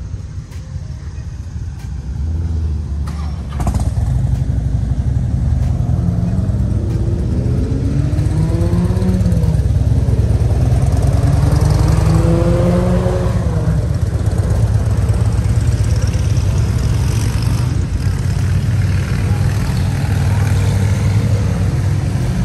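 Motorcycle engine running, stepping up in loudness a few seconds in and then accelerating, its pitch climbing twice in the middle before settling to a steady run.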